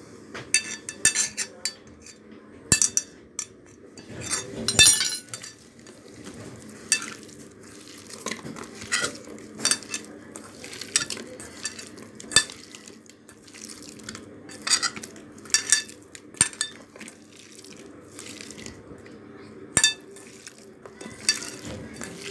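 Beef slices being mixed by hand into a thick yogurt-and-spice marinade in a stainless steel bowl, with irregular sharp metallic clinks as the bowl and the spoon resting in it are knocked, over a steady low hum.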